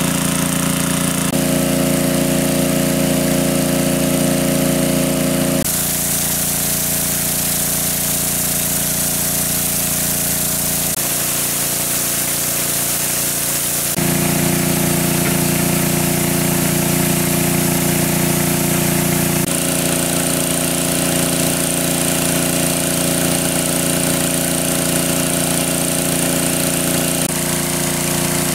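Engine of a large water pump running steadily. Its pitch and tone jump abruptly several times.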